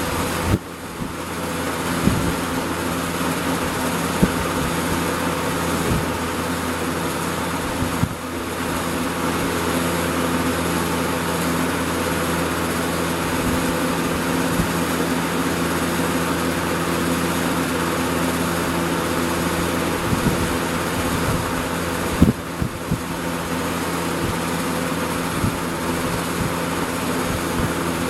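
1988 Lakewood Model 223 20-inch box fan running with its McMillan motor: a steady rush of air over a motor hum, not very quiet. A few faint clicks and brief dips in level come three times.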